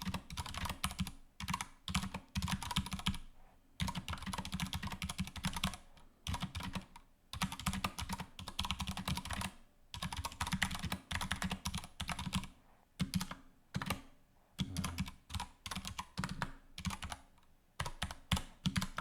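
Typing on an Anne Pro II mechanical keyboard with Cherry MX Brown switches: runs of rapid key clicks broken by short pauses every few seconds, pretty tinny and kind of loud.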